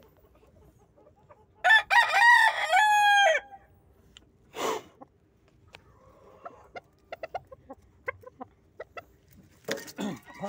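Rooster crowing: one loud crow about two seconds in, lasting under two seconds, and another crow starting near the end. In between there is a short rustle and a few soft clicks.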